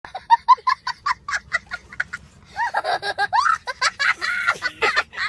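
A young boy laughing hard: first a quick run of short ha-ha bursts, then, about halfway through, longer laughs that rise and fall in pitch.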